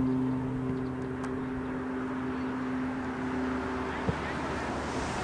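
A steady, low engine hum that stops about four seconds in, over a background of outdoor noise.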